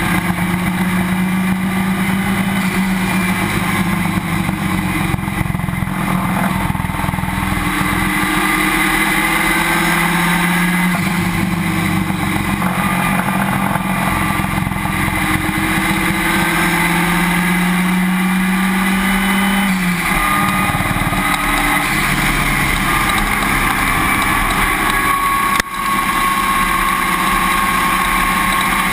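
Race car engine running hard on track, its pitch climbing in long stretches and falling back several times, with a sharp drop about twenty seconds in, under heavy wind and road noise at the rear wheel.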